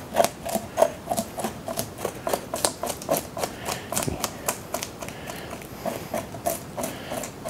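A knife blade scraping the scales off a whole bluegill in quick, repeated short strokes, about three a second, with a clicking rasp as the scales flick off against the plastic cutting board.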